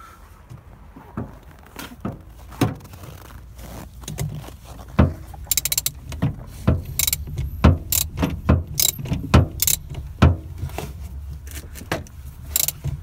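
Socket wrench working on a car battery terminal clamp: irregular metallic clicks and clinks, with a few short runs of rapid clicking, as the terminal is tightened on a car that would not start.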